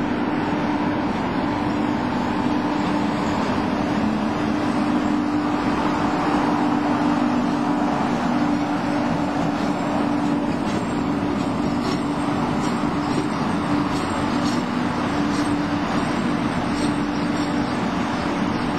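Railway locomotive running close by: a steady mechanical drone with two held low tones. Faint clicks come in during the second half.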